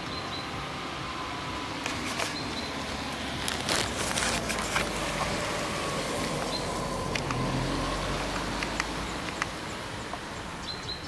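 Distant car engine, its low hum swelling through the middle and easing off near the end, over a steady outdoor hiss. Sharp clicks and rustles sound close by.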